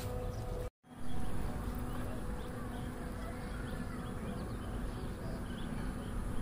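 Outdoor ambience: wind rumbling on the microphone under a steady faint hum, with scattered short, faint high chirps. The sound drops out completely for a moment less than a second in, then comes back slightly louder.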